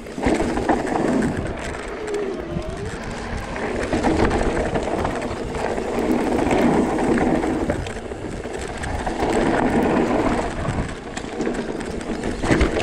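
Electric mountain bike riding down a rocky dirt trail: tyres rolling over loose stones and the bike rattling, with a continuous rushing noise that swells and eases.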